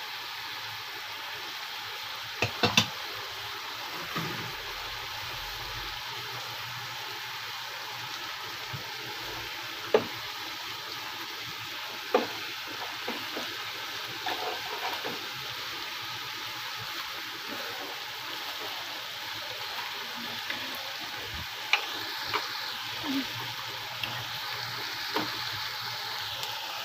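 Bangus (milkfish) steak frying in its sauce in a pan with a steady sizzle as the sauce cooks down, broken now and then by short sharp knocks of a utensil against the pan.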